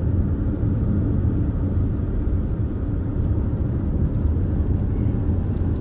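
Steady low rumble of a vehicle in motion, engine and road noise running evenly without change.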